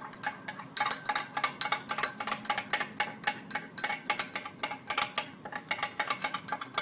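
Metal spoon stirring briskly in a drinking glass of water, clinking against the glass about six or seven times a second, while powdered gum arabic is poured in from a sachet.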